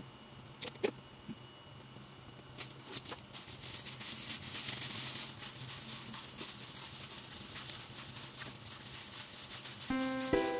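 A plastic-gloved hand mixing raw chicken pieces in marinade in a bowl: soft wet squishing and crinkling of the glove, with many small clicks. Background music comes in near the end.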